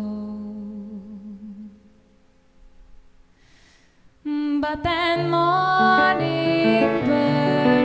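Live band music: a held, wavering note fades out, then after a short pause keyboard and a singing voice come in suddenly about four seconds in.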